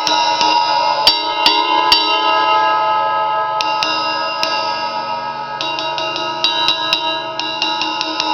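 Sabian XS20 20-inch Rock Ride cymbal tapped repeatedly in short runs of strokes, each stroke adding to a sustained, shimmering metallic ring that never dies away.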